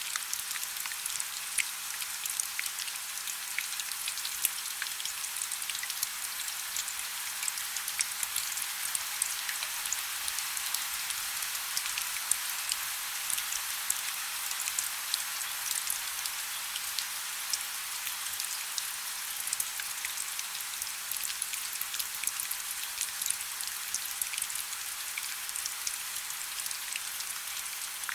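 Steady rain falling on a hard surface: a continuous high hiss dense with sharp individual drop ticks, with almost no low rumble.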